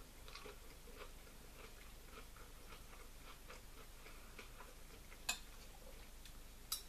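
Knife and fork clicking faintly against a dinner plate while food is cut, with two sharper clinks near the end.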